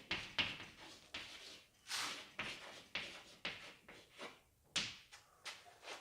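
Faint scratchy strokes of a pen or marker writing words onto a list, a quick irregular series of short scrapes, roughly two a second.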